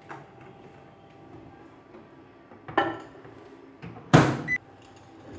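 Microwave oven door knocks shut twice, the second louder, followed by a short single beep, over a faint steady hum.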